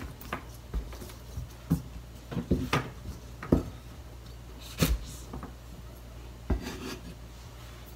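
Kitchen knife cutting the hard tips off garlic sprout stalks on a plastic cutting board: about a dozen irregular knocks as the blade goes through the stems and hits the board, with some rubbing of the stalks being handled, over a steady low hum.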